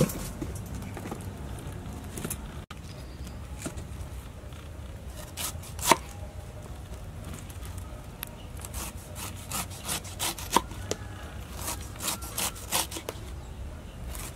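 Kitchen knife slicing the tough rind off a whole pineapple on a wooden cutting board: scattered crisp cuts and taps of the blade on the board. There is one sharp knock about six seconds in, and the cuts come thicker in the second half.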